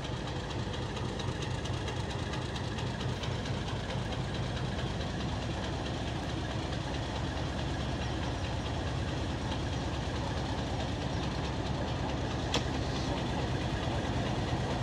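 Pakistan Railways PHA-20 diesel-electric locomotive running steadily with a deep engine hum as it pulls the train slowly out of the station, growing a little louder toward the end. A single sharp click about twelve seconds in.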